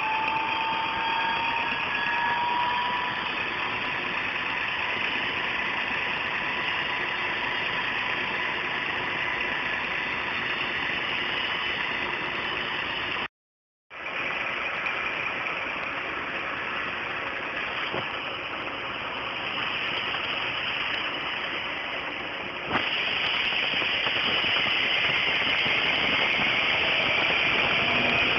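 Fire engine and ambulance engines running as the vehicles pull up, a steady engine hum under a haze of noise with a few faint, slowly rising tones.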